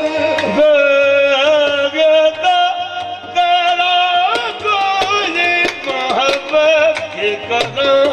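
Qawwali music: a lead singer's wavering, ornamented vocal line over sustained harmonium, with frequent drum strokes.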